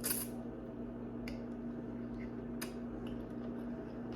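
Soft clicks of someone eating noodles, about three over a few seconds, over a steady low electrical hum.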